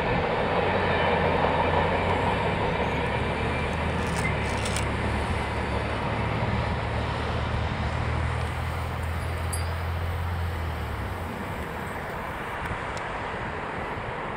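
CSX manifest freight train rolling past with a steady rumble and a low drone that drops away about eleven seconds in, the sound slowly fading.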